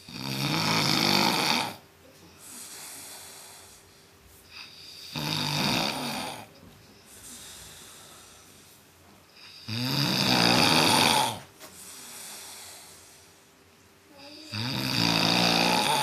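A sleeping man snoring heavily: four loud, rasping snores, each about a second and a half long and about five seconds apart, with softer breaths between them.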